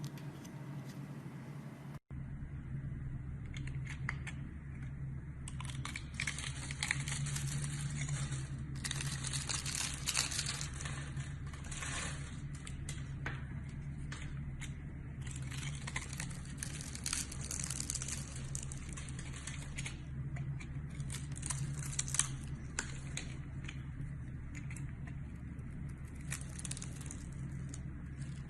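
A dry, crumbly material crushed and crumbled by hand, giving dense, irregular crunching and crackling in repeated bursts, with a few sharper cracks, over a steady low hum.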